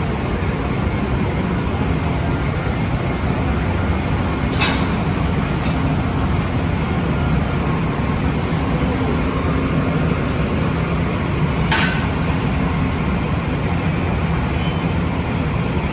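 Steady low rumble of a stopped train idling at a station platform, with two sharp metallic clanks about seven seconds apart.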